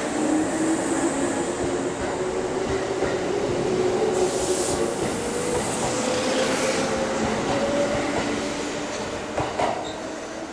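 Kintetsu limited express electric train accelerating away from the platform: its traction motors whine in two tones that climb steadily in pitch over the wheel and rail noise. Near the end the last cars pass and the sound fades.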